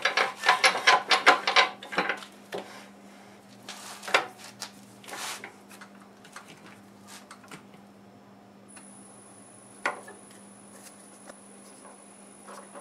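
Metal clattering and clicking for about the first two seconds as the wood lathe's tool rest is moved and set, then a few scattered knocks. A faint steady high whine comes in about nine seconds in, over a steady low hum.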